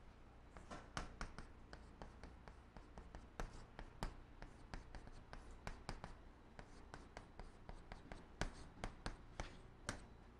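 Chalk writing Chinese characters on a chalkboard: faint, quick, irregular taps and short strokes of the chalk against the board, a few a second.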